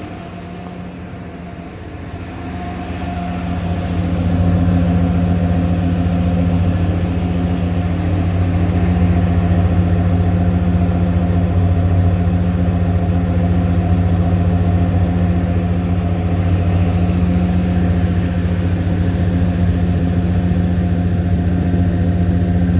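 1995 Ford F-150's 5.0-litre V8 running steadily at a constant speed, getting louder a couple of seconds in. A ticking is present that the owner places on the driver's side of the engine and is trying to identify.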